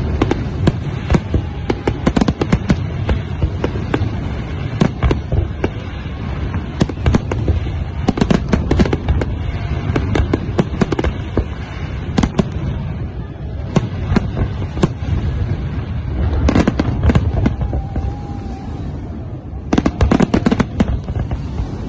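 Aerial fireworks display going off: many sharp bangs over a continuous low rumble, with a rapid flurry of bangs near the end.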